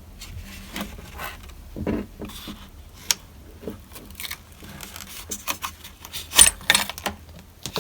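Irregular plastic clicks, knocks and scrapes as a Toyota Prius's broken rear-hatch release button is forced out of its housing by hand, with a burst of louder clicks near the end.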